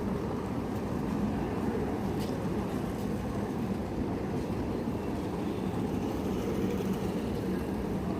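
Steady low rumble of railway station background noise.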